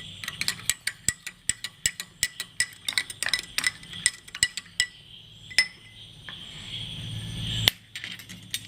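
A spoon stirring a glass of hot water, clinking quickly and repeatedly against the glass for about five seconds before the clinks thin out. Near the end a low hum swells and cuts off with a click.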